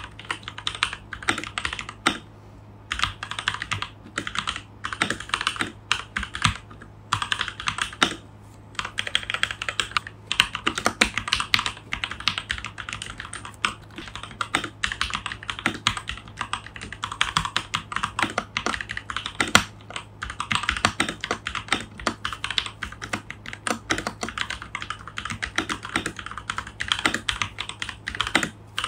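Typing on a Keychron K2 Version 2 mechanical keyboard with Gateron Brown switches in a plastic frame: a fast, continuous run of key clacks, broken by a few short pauses.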